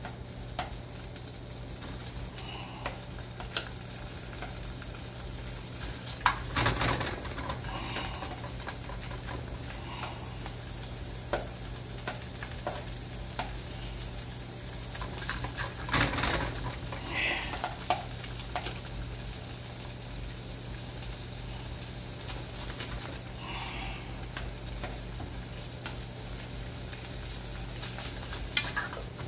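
Food sizzling in a non-stick skillet on an electric stove, under a steady low hum, with scattered clicks and knocks of tongs against the pan.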